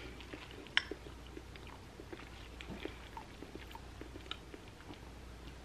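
Close-miked eating of cooked cabbage: faint chewing and mouth sounds with small scattered clicks, and one sharper click about a second in.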